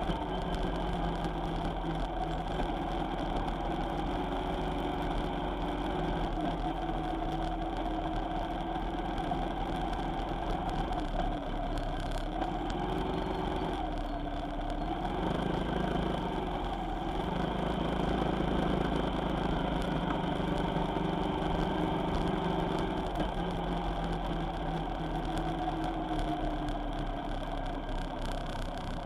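A vehicle's engine running on the road, its pitch dipping and rising again a few times about halfway through as the speed changes.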